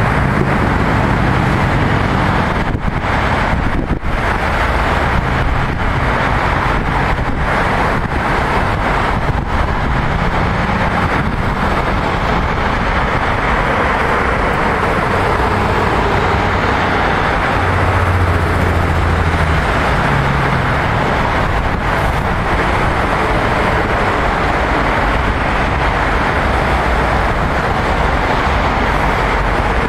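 Steady road traffic: a continuous rush of tyres and engines, with the low hum of single heavier vehicles swelling and fading now and then.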